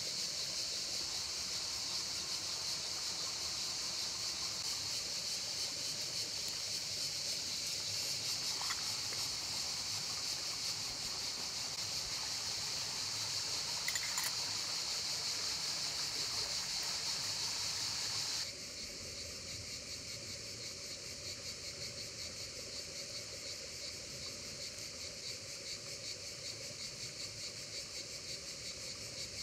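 River water running over stones, with insects chirping steadily. About two-thirds of the way through the sound drops suddenly to a quieter, pulsing insect chorus.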